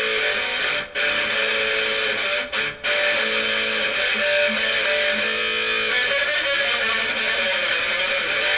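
Electric guitar strumming chords through a Marshall 5210 solid-state amplifier, with short breaks between chords about a second in and again near three seconds.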